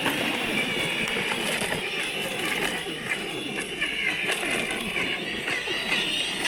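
Two electric RC monster trucks, an Arrma Notorious and a Traxxas Maxx, pulling against each other at full power in a tug of war. Their brushless motors and drivetrains give a steady high whine under heavy load, over a crackle of tyres and grit.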